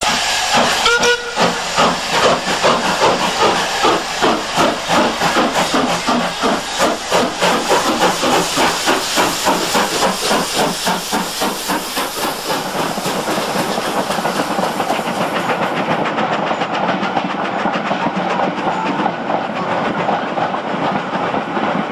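Steam locomotive working hard, its exhaust chuffs coming about three a second, with a short whistle about a second in. After about twelve seconds the chuffs blur into a steadier rushing hiss.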